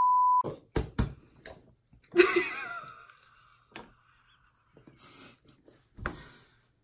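A steady 1 kHz test-tone beep, the tone that goes with colour bars, cuts off about half a second in. Two sharp clicks follow, and about two seconds in a short vocal outburst trails off.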